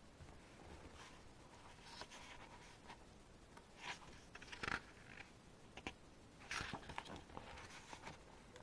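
Faint paper rustling and soft handling noises of an album's photobook being leafed through, with a few short scrapes and taps, the clearest just under five seconds in.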